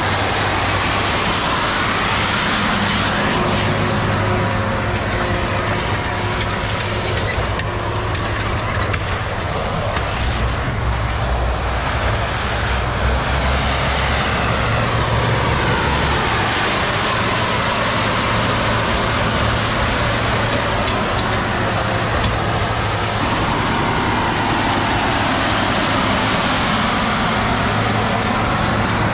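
John Deere 9RX four-track tractor running steadily under load as it pulls a Horsch cultivator and seed drill through tilled soil. Its pitch swells and falls as it passes by, around the middle and again near the end.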